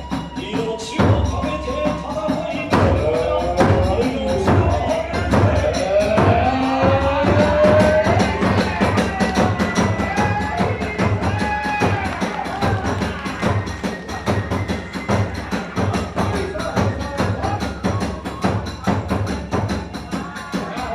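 Kagura hayashi ensemble playing: a bamboo transverse flute winds a wavering melody over steady strokes of the taiko drum and the clashing of small hand cymbals (tebyoshi).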